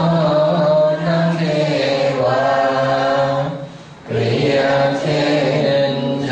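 Group of lay men and women chanting in unison in the Thai sarabhanya style, a slow melodic chant of worship verses to the Phra Buddha Sihing image, with long held notes and a short break about four seconds in.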